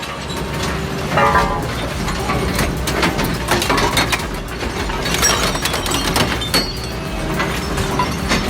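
Industrial shredder running and chewing through material: dense, irregular cracking and crunching over a steady low engine drone, with brief squeals.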